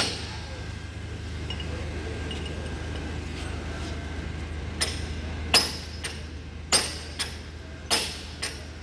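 Sharp metallic clinks, about six in the second half, each with a short ring, from steel tools and gearbox parts knocking together, over a steady low hum.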